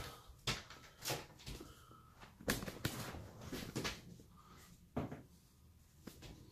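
A few faint, scattered light knocks and taps, the clearest about two and a half seconds and five seconds in.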